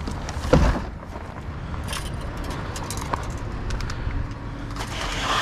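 Scrap wire and metal pieces being handled and sorted: a thump about half a second in, then scattered small clinks and rustling over a low steady rumble.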